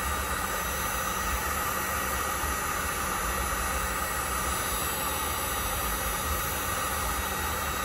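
Heat gun running, a steady rush of blown air, aimed at an engine's bellows thermostat to heat it open.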